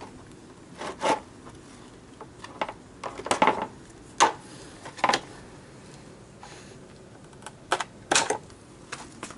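Irregular sharp plastic clicks and knocks, about ten of them, from a Nissan D21 pickup's plastic radiator fan shroud being handled as the tabs of its removable bottom section are worked by hand.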